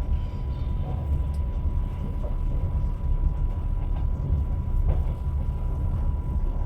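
Train running on rails: a steady low rumble of the wheels, with a few faint knocks and a thin steady whine throughout.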